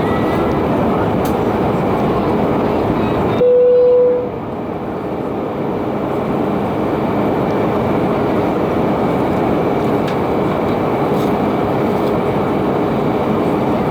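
Steady cabin noise inside an Airbus A320 airliner in flight on approach, a loud even rush of engine and airflow noise. About three and a half seconds in, a short single tone sounds for under a second, after which the noise briefly drops and builds back up.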